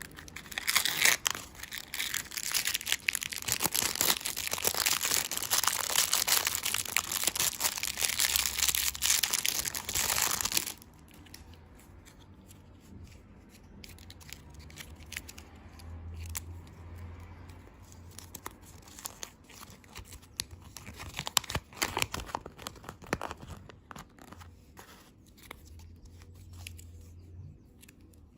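Crinkly plastic candy packaging being torn open and crumpled by hand: dense crackling for about ten seconds that stops suddenly. Quieter handling with scattered clicks and taps follows.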